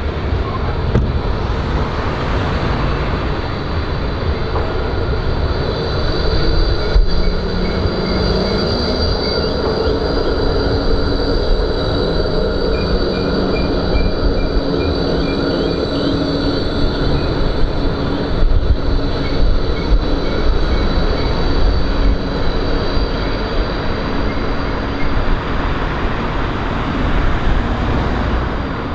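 Bombardier E-class low-floor electric trams on street track: a tram passing close, its motors whining with a pitch that rises about seven seconds in and then holds, over steel wheels running on the rails with a high, steady squeal.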